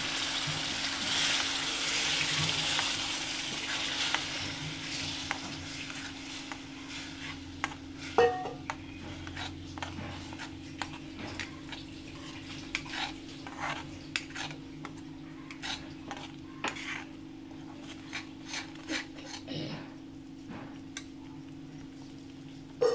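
Tomato-onion masala sizzling in a metal kadai after water is poured in, the hiss loud at first and dying down over the first several seconds. Then a slotted steel spoon stirring the thinned masala, with scattered short clicks and taps against the pan and one sharp clack about eight seconds in.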